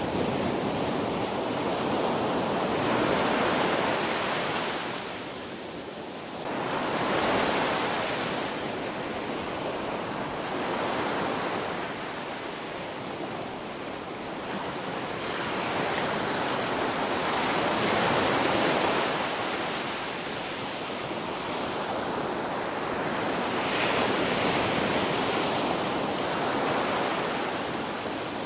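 Ocean waves breaking on a beach: a continuous rushing surf that swells and eases, with several waves cresting a few seconds apart.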